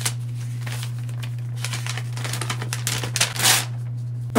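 Paper instruction sheet being unfolded: a click at the start, then crinkling and rustling that grows busier in the second half, with the loudest crackle shortly before the end. A steady low hum runs underneath.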